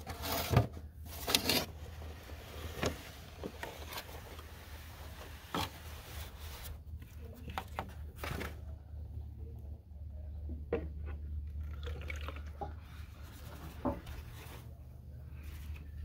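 Drained primary chaincase oil from a Harley M8 being poured from the drain pan into a marked measuring container: a steady pour that stops about halfway through, with a few knocks of pan and container. A low steady hum runs underneath.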